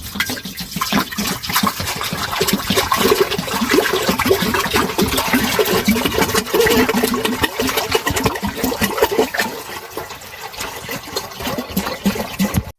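Heavy rain pouring down with water splashing, dense and steady.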